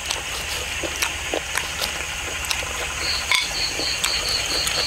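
Faint clicks and taps of a knife slicing pounded grilled beef on a wooden chopping block, over a steady outdoor background hiss. Near the end a high chirp repeats quickly, about four times a second.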